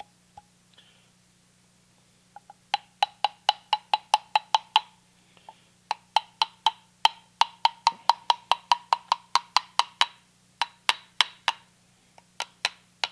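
Rapid light taps in several quick runs, each with a short metallic ring: bearing housings being tapped onto the new SKF ball bearings on a vintage Delta 6-inch jointer's cutterhead spindle, a snug push fit.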